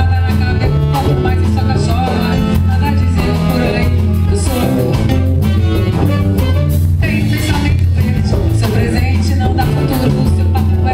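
Live band playing Brazilian popular music, with a steady bass line under dense instruments and a regular percussive beat.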